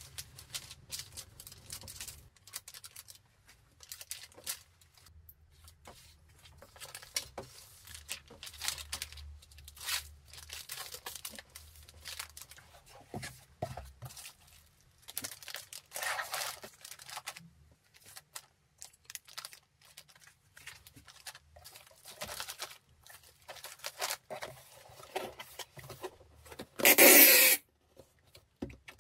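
Irregular rustling, crinkling and scraping of paper, plastic bubble wrap and cardboard as a parcel is packed. Near the end comes a loud screech, about a second long, of packing tape pulled off a tape gun across the cardboard box.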